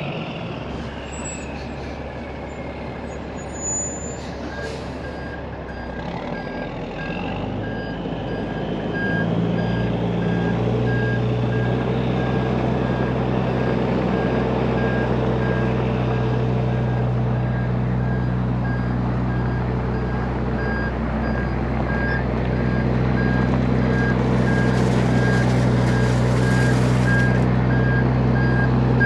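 Kenworth T800 end dump semi backing up: its reversing alarm beeps steadily over the Caterpillar C-15 diesel, which picks up under throttle about nine seconds in. A short hiss of air near the end.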